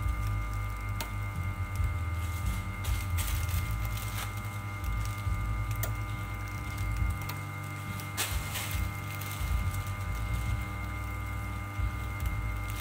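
Plastic bag handled close to the microphone: scattered crackles and clicks over a steady low hum and rumble.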